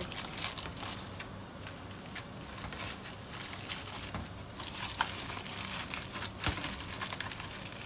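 Aluminium foil crinkling and crumpling as hands fold and press it closed around a fish on a plate, with irregular crackles that grow busier in the second half.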